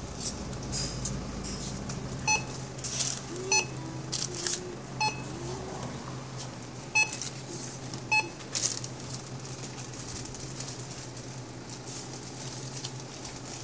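Checkout barcode scanner beeping as groceries are scanned: five short beeps a second or two apart, over a steady low hum.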